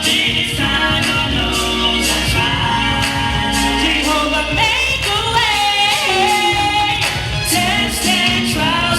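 Music with singing: a sung melody over a steady bass line.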